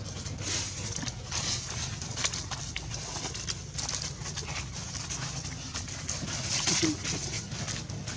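Dry fallen leaves crackling and rustling under a macaque's feet as it walks through leaf litter. The crackling comes in irregular bursts, loudest near the end, over a steady low rumble.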